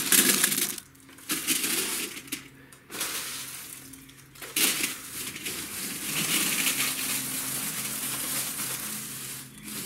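Small squares of cut-up cardboard rattling and rustling as they are dropped by the handful into a foil-lined wooden box, in several short bursts, then a longer continuous pour from about halfway through as a plastic tub of them is tipped in. A faint steady hum runs underneath.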